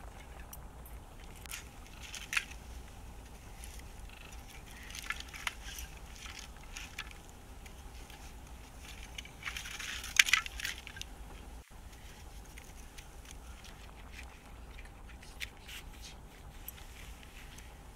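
Rough stones and blocks being handled and set down on gravel to build a small hearth: scattered scrapes, knocks and crunches, with the loudest cluster about ten seconds in.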